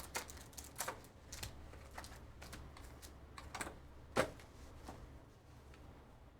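Trading-card boxes and packs being handled and opened: faint, irregular clicks and short crinkles of cardboard and wrapper, with one sharper click about four seconds in.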